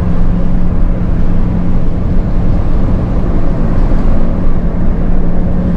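Intercity coach bus running steadily under way: a constant low engine hum over road rumble.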